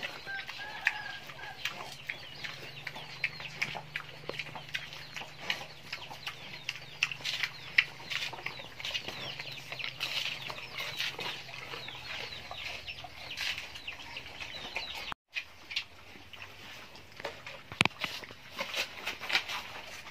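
Wild boar-type pigs feeding: a steady run of small crunches, crackles and snuffles as they chew and root among dry corn husks, with frequent short clucks and chirps of farmyard fowl. The sound drops out for a moment about three-quarters of the way through.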